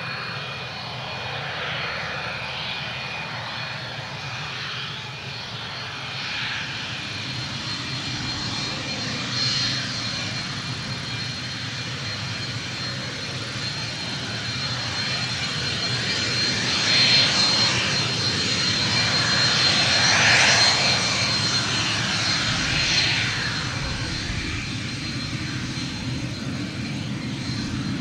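Cessna Citation business jet's twin rear-mounted turbofans whining steadily as it taxis, with a low rumble underneath. The sound swells louder for a few seconds in the second half, then eases off.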